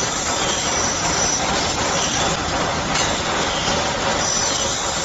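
Servo-fed CNC circular saw running and cutting metal tube into short lengths: a steady dense machine noise with coolant spray. A high falling screech from the blade in the metal comes right at the start and again about four seconds in.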